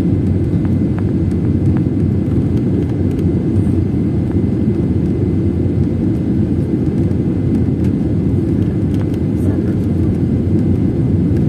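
Steady low rumble of a jet airliner, even and unbroken.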